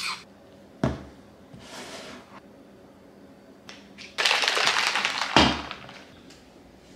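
Handling a plastic protein-shake shaker bottle and powder tub on a granite countertop. There is a sharp knock about a second in, a second-long burst of scraping and rattling just past four seconds, and then a loud thud as the bottle is set down on the counter.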